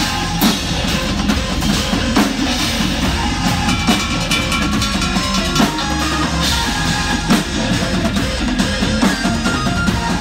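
Loud live rock music driven by drum kits and cymbals, with guitar underneath: dense, constant drum hits.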